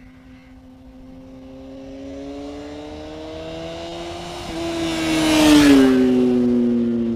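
A motor vehicle approaches and passes by, its engine note rising slowly and growing louder, then dropping in pitch as it goes past about five and a half seconds in.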